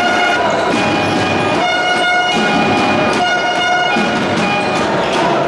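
Horn blasts in a basketball arena: several held notes, each about half a second to under a second, over the steady noise of the crowd.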